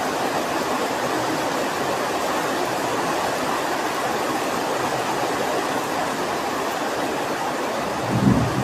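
Steady rain falling, an even hiss. A brief low rumble comes in near the end.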